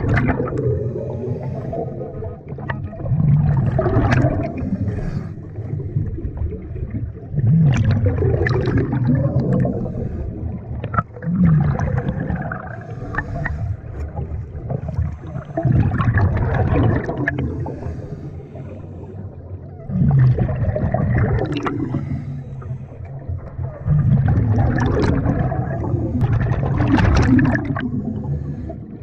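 Scuba diver's breathing heard underwater: bursts of exhaled bubbles from the regulator gurgle up every few seconds, with quieter stretches of inhaling in between.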